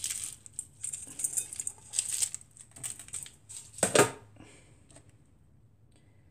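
Strands of craft pearl beads rustling and clicking against a metal tin as fingers rummage through them, ending in a single sharp knock about four seconds in, after which it goes quiet.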